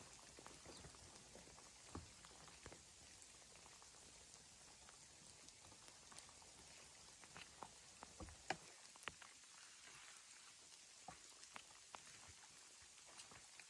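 Near silence, with faint scattered ticks and taps. One slightly louder tick comes about eight and a half seconds in.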